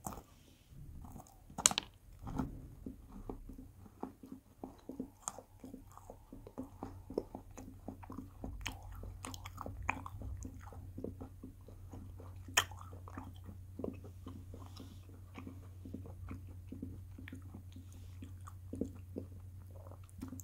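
Close-up chewing of candy-coated chocolate eggs: sharp crunches as the hard shells crack, the loudest about two seconds in and again around twelve seconds, between stretches of crackling chewing.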